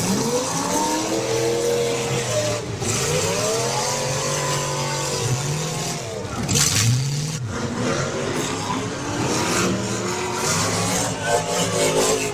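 Engines of several full-size race cars revving hard, their pitch repeatedly rising and falling as they accelerate and back off, with a brief harsh burst of noise about seven seconds in and another near the end.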